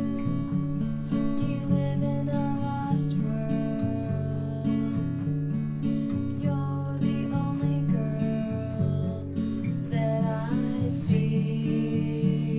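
Instrumental music led by acoustic guitar, a steady pattern of low picked notes with higher melody notes above; about ten seconds in, a higher note bends and wavers briefly.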